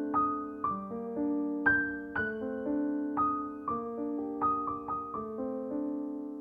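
Solo piano music: single notes struck about once or twice a second over held lower notes, each left to ring and fade.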